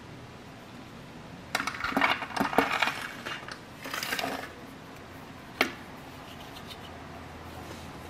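Small steel parts of a disassembled Leatherman Wave multi-tool clinking and clattering against each other as they are handled, in two short spells, followed by a single sharp metallic click.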